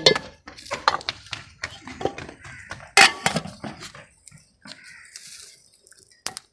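Metal kitchenware clanking: a ladle knocking in an aluminium cooking pot and steel plates being handled. The clanks come as separate knocks, some with a short metallic ring. The loudest falls about three seconds in, and a last sharp one comes near the end.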